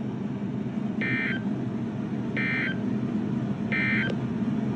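NOAA Weather Radio Emergency Alert System end-of-message data tones: three short, identical warbling digital bursts about a second and a half apart, marking the close of the severe thunderstorm warning broadcast. A steady low hum runs underneath.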